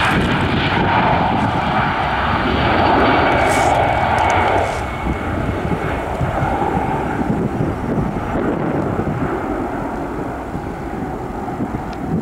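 Airbus A320 twin jet engines at take-off thrust during the take-off roll: a loud, steady rushing noise with a thin whine. It drops somewhat about five seconds in and eases further as the aircraft moves away.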